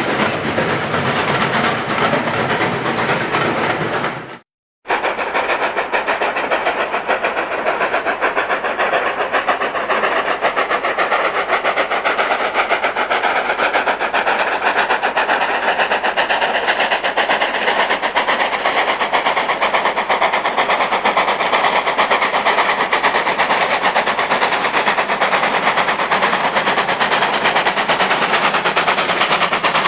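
Steam locomotives working hard with a passenger train: a train pulling away under heavy exhaust, a sudden half-second break at about four seconds, then the chuffing of two steam tank engines double-heading a train toward the microphone, steady and loud.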